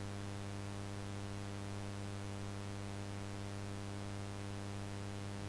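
Steady electrical mains hum with a low buzz, its overtones evenly stacked, over a faint static hiss, unchanging throughout.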